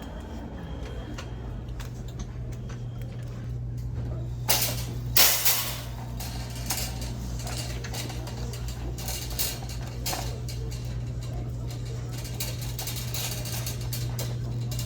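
Shop ambience: a steady low hum with scattered clicks and light clatter of goods being handled, and two louder knocks about four and a half and five seconds in.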